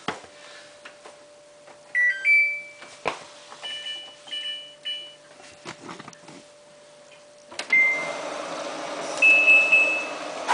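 Samsung WF8804RPA washing machine's control panel beeping as its buttons are pressed to enter service mode: a click and several short high beeps. About three-quarters through, a steady rushing noise starts, with two more beeps, as the machine begins filling with water in its service (test) mode.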